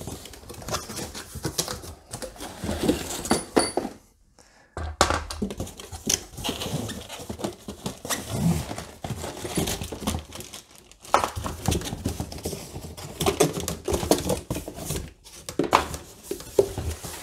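Cardboard box being opened and a folded aluminium kick scooter handled out of it: rustling and scraping cardboard mixed with irregular clicks and knocks of metal parts, with a brief pause about four seconds in.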